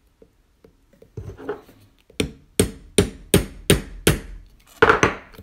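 Hammer tapping a punch to drive a cut-off rivet out through the backspacer of a Spyderco Manix2 Lightweight knife clamped in a vise. There are about seven sharp taps, roughly three a second, starting about two seconds in after some lighter handling knocks.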